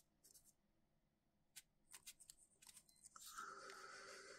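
Faint handling of blue painter's masking tape on a small die-cast car body: light crinkles and clicks, then a soft steady rasp of the tape starting about three seconds in.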